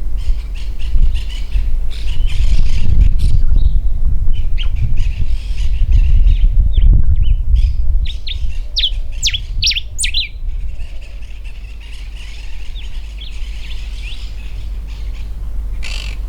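Common diuca finch singing: short whistled notes and quick sliding phrases, with a fast run of them about nine to ten seconds in. A steady low rumble runs underneath.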